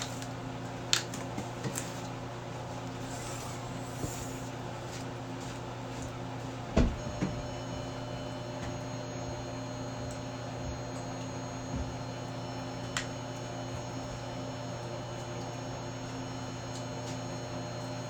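Steady electrical hum, with a few scattered clicks and a single louder knock about seven seconds in.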